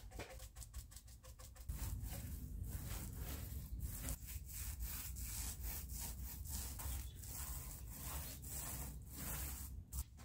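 A paint brush scrubbing paint onto a panel in quick strokes. About two seconds in, it gives way to a paint roller rolled back and forth over a wooden dresser side, with a low rumble and about two strokes a second.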